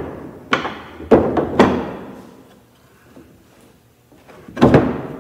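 Wooden thuds and knocks as a glued-up panel and steel pipe clamps are handled on a workbench: three knocks in quick succession about half a second to a second and a half in, and another near the end.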